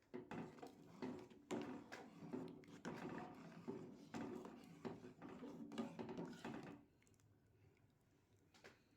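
A kitchen utensil scraping and knocking in a cooking pot, in quick irregular strokes for about seven seconds, then stopping.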